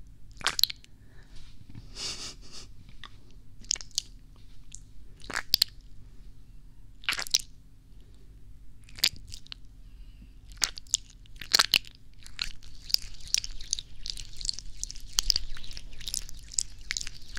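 Clear disposable gloves crinkling and rubbing at the ears of a binaural microphone: scattered crisp crackles and snaps that grow dense and almost continuous for the last five seconds or so.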